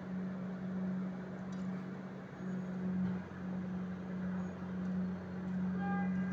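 Asphalt-laying road machinery running: a steady low engine hum that swells and eases every second or so over a broad rumble. Near the end comes one short electronic beep, the kind of warning signal the machines sound.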